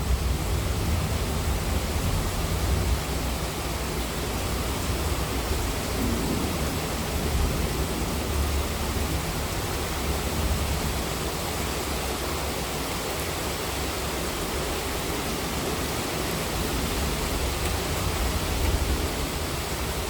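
Heavy monsoon rain falling steadily: a dense, even hiss over a deep low rumble.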